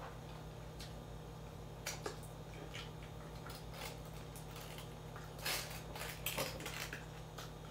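Faint close-up eating sounds: a chicken wing being torn apart by hand and chewed, with a few sharp crunchy clicks about two seconds in and a cluster between five and a half and six and a half seconds in, over a steady low hum.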